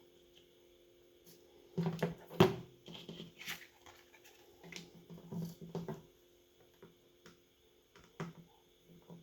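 Scattered small clicks and taps of handling phone parts and hand tools during a smartphone teardown, the sharpest knock about two and a half seconds in and a lone click near the end, over a faint steady hum.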